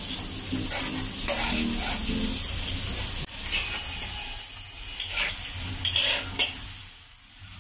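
Sliced onion and minced ginger sizzling in hot oil in a wok while a metal spatula stirs and scrapes across the pan. A little past three seconds in, the sizzle drops off and the spatula strokes stand out.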